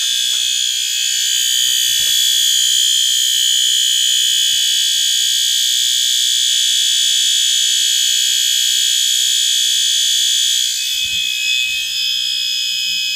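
Electronic fire alarm horn sounding a loud, steady continuous tone, with no on-off pattern.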